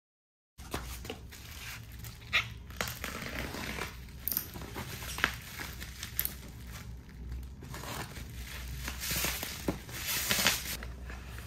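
Plastic bubble wrap and packing tape crinkling and rustling as a parcel is handled and unwrapped, with irregular sharp crackles. It starts about half a second in, and the rustling grows louder and denser near the end.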